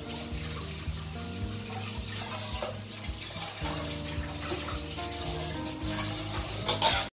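Tap water running into a kitchen sink as steel dishes are washed under it, with a couple of clanks of steel utensils, over background music.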